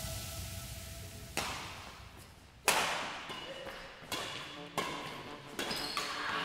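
Badminton rally: rackets striking the shuttlecock, six sharp hits roughly a second apart, the loudest about two and a half seconds in. Background music fades out in the first second.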